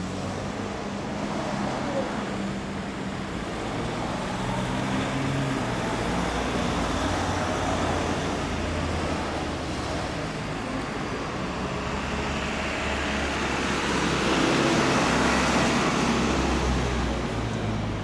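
Suzuki Inazuma 400's air/oil-cooled inline-four idling steadily through a 4-into-1 exhaust with a WR'S slip-on silencer. A broader rushing noise swells over it in the second half, loudest about three seconds before the end.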